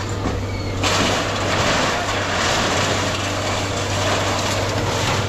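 Heavy scrapyard machinery running steadily with a low hum; about a second in, a loud rushing noise comes in abruptly and carries on.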